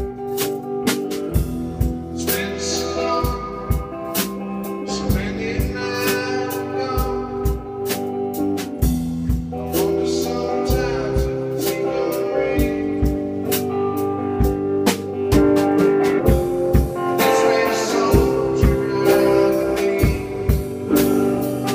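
A band playing a song, with a drum kit keeping a steady beat under guitar and other pitched instruments.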